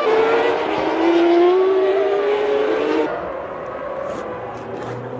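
Formula One car engines at high revs, the pitch climbing as the car accelerates. About three seconds in the sound cuts abruptly to a quieter, more distant engine sound.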